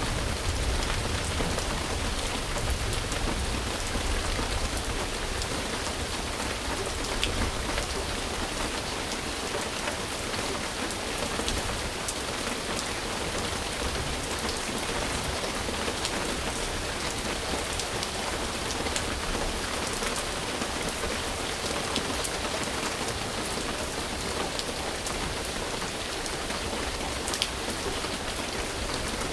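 Steady rain falling on a surface, an even hiss with scattered sharper drop hits. A low rumble under it fades away over the first several seconds.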